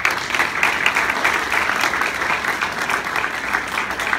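A crowd applauding, steady clapping that starts as the dedication is pronounced.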